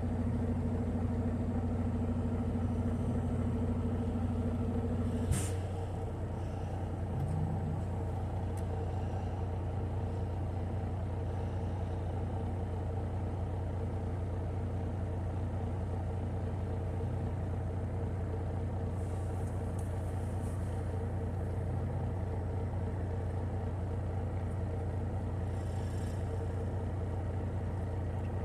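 Semi truck's diesel engine idling with a steady low hum, with a sharp click about five seconds in.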